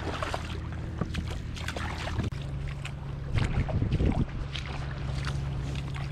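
Shallow seawater splashing and sloshing with scattered small knocks as an inflatable kayak is waded and dragged through the shallows, over a steady low hum. The splashing grows louder and choppier about three and a half to four seconds in.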